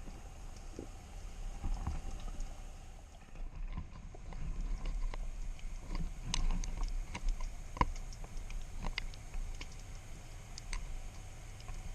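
Underwater ambience picked up by an action camera in its waterproof housing: a low rumble of moving water with many scattered sharp clicks and crackles, coming more thickly in the second half.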